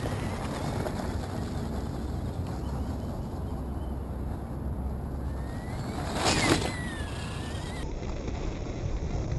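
Axial Trail Honcho RC rock crawler's electric motor whining, its pitch rising and then falling as the truck drives over loose gravel. This runs over a steady low rumble, with a brief noisy burst about six seconds in.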